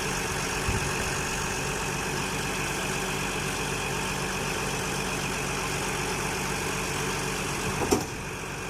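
An engine idling steadily, with a single sharp knock near the end.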